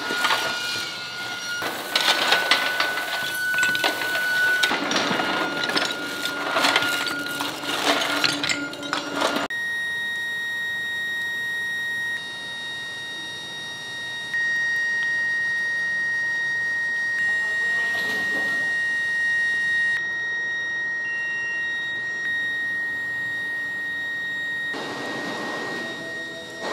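Iron induction melting furnace running with a steady high-pitched whine. Crackling and scraping sound over it for the first nine seconds or so.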